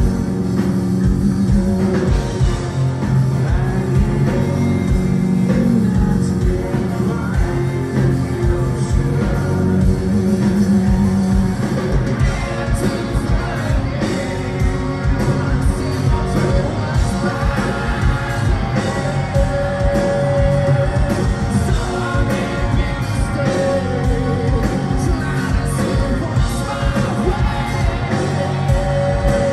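Live rock band playing: electric guitars, bass and drums with a male lead singer, heard from the crowd. Cymbal hits grow busier about twelve seconds in.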